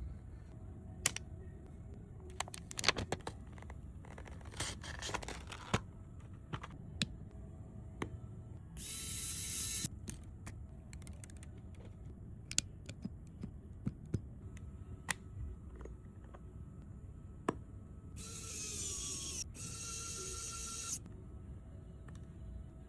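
Small tools clicking and tapping against an iPhone during a screen replacement, scattered irregular clicks over a low hum. Two bursts of hissing: one lasting about a second around nine seconds in, and a longer one from about eighteen to twenty-one seconds.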